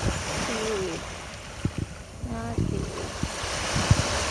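Small waves washing up on the sand at the water's edge, a steady hiss of surf that swells toward the end. A person's voice makes two brief sounds, about half a second in and again around two seconds.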